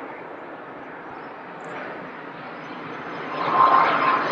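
Airbus A330 jet airliner on final approach, its engine noise growing louder as it nears. About three seconds in it swells sharply, and a steady high whine from the engines comes in.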